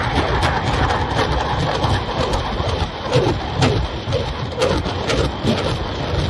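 Rocket barrage landing: a continuous rumble and crackle of overlapping explosions, with several sharper cracks of individual rocket impacts standing out.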